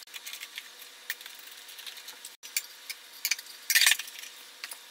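Small clicks and ticks of wire terminals being handled and fastened at a mower battery, then a short, louder plastic clatter near the end as the plastic battery cover is set back in place.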